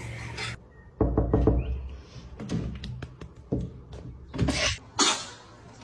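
A series of knocks and thumps: a quick cluster about a second in, then single ones roughly a second apart.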